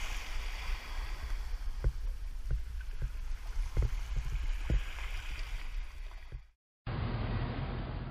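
Wind rumbling on an action camera's microphone over small waves washing on a sandy shore, with a few faint light knocks. About six and a half seconds in it cuts out briefly, then a duller, muffled hiss follows: the camera underwater.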